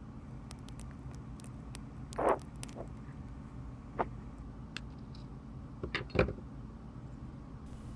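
Wire cutters snipping the excess leads off freshly soldered 1/8 watt resistors on a circuit board: a few sharp clicks, roughly two seconds apart, with fainter ticks of handling in between.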